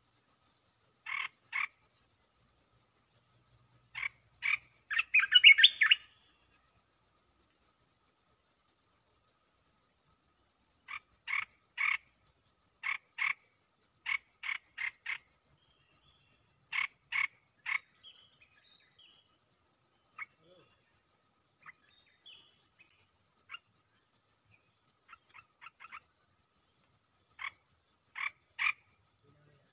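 Caged decoy bulbul calling in short groups of two or three sharp notes, with a louder flurry of notes about five seconds in. A steady high insect trill runs underneath.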